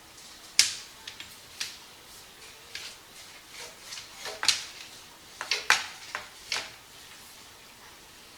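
About a dozen sharp, irregular clicks and knocks, loudest just over half a second in, with a cluster around four to six seconds, then quiet.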